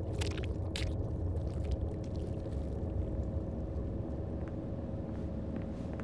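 Steady low rumbling hum with a faint steady tone above it, and a few short wet squelching noises in the first second.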